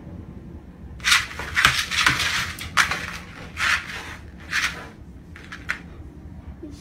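A dog scratching and scrabbling at a laminate floor with its claws as it paws at a laser dot: a string of short, irregular scrapes about a second apart, starting about a second in.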